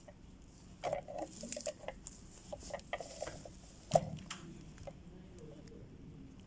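Scattered short clicks, taps and rattles of parts being handled while a new fuel pump motor is fitted into its housing, the loudest a single sharp knock about four seconds in.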